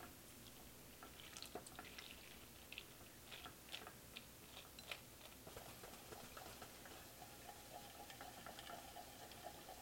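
Faint, irregular light clicks and scrapes of a spatula stirring melting chocolate chips and cream in a stainless steel saucepan.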